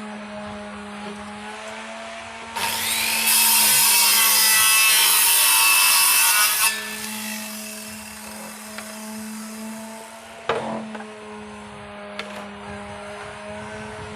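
Electric saw running steadily, then cutting through wood for about four seconds with a loud rasping whine before settling back to its free-running hum. A single knock comes near the end.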